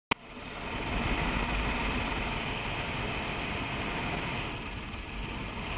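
Helicopter in flight heard from its open-doored cabin: steady turbine and rotor noise mixed with wind rush. A sharp click at the very start, then the noise swells up over the first second.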